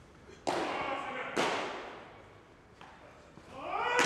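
Pitched baseballs smacking into catchers' mitts in an indoor bullpen: two sharp pops about a second apart, each ringing off the hall. Near the end a man's voice calls out, and another pop lands right at the end.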